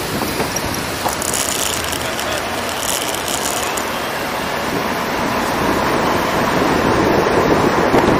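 Steady road and engine noise from a car driving slowly through city streets, picked up by a camera mounted on the car's body.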